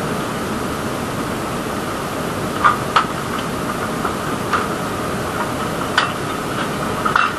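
A steady, even mechanical-sounding noise with a faint held tone in it, broken by about five short sharp clicks or knocks.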